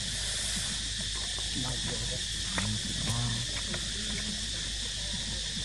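Steady high-pitched drone of an insect chorus, with faint voices murmuring briefly about halfway through.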